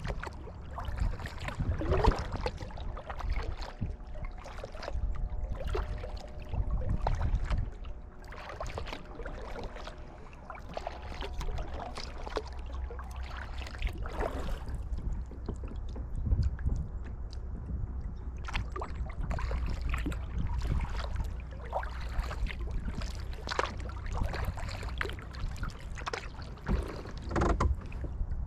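Kayak paddle dipping and splashing, with water dripping off the blades, over a low rumble of wind on the microphone.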